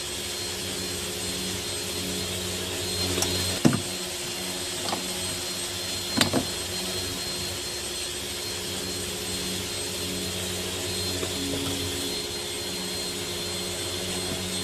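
Steady machine hum running throughout, with a few sharp plastic clicks and knocks about four and six seconds in as the car door mirror's inner trim cover is prised off.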